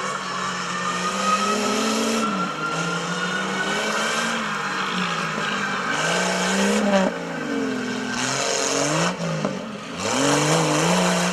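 Off-road race Jeep Cherokee's engine revving up and down again and again as it drives through mud and over rough ground, with a thin high whine rising slowly in the first few seconds. Short bursts of rushing noise come about six, eight and ten seconds in.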